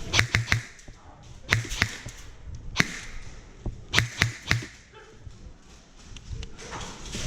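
Airsoft guns firing in short quick bursts of two to four sharp shots, about four bursts with pauses between them.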